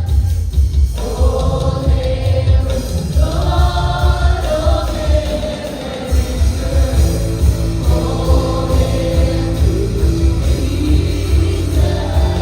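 Live church worship music: a band playing over a steady pulsing bass beat while a group of voices sings held notes together.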